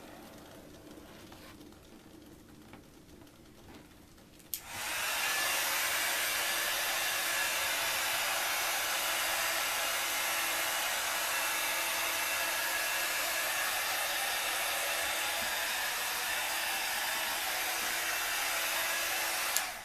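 Handheld electric hot-air blower switched on with a click about four and a half seconds in, running as a loud, steady rush of air over wet acrylic paint, then switched off with a click just before the end.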